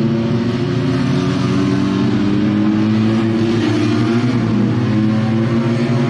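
Small two-cylinder Fiat 500-based race cars running hard at high revs and accelerating toward the listener. Their engine pitch climbs gently, then breaks briefly about four seconds in.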